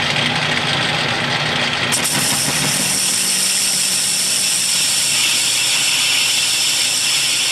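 Atlas metal lathe running as an indexable insert tool faces off a cast iron workpiece: a steady motor hum under the hiss of the cut, which turns brighter about two seconds in and then holds even.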